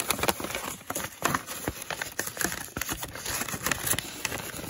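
Paper envelope rustling and crinkling as hands handle it, folding its flap over the paper-wrapped card package: a close, continuous run of irregular papery crackles and ticks.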